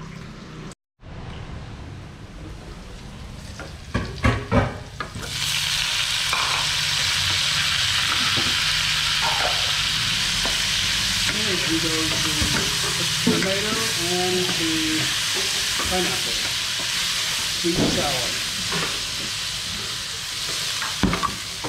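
Tomato, pineapple and garlic sizzling in hot oil in a wok while a wooden spatula stirs them. A few knocks come first, then the sizzle starts suddenly about five seconds in and stays steady.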